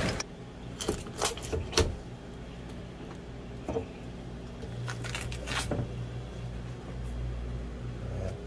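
Kitchen knife working filefish on a cutting board: several short knocks and scrapes of the blade against the board and fish, over a steady low hum.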